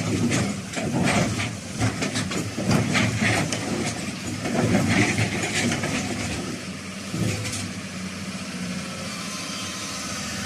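Hyundai 220-9S excavator's diesel engine running, with many short knocks and clatter over it for roughly the first six seconds, then settling to a steady idle.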